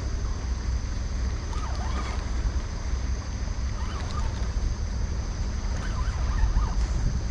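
Wind buffeting the microphone in a steady low rumble, with light water lapping around a fishing kayak on calm sea.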